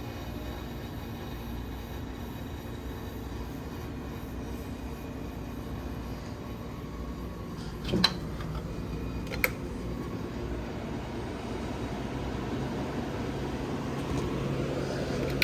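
Vintage Philco-Ford window air conditioner running with a steady fan noise. Two sharp clicks come about eight and nine seconds in, then a low hum comes in and the unit grows louder toward the end.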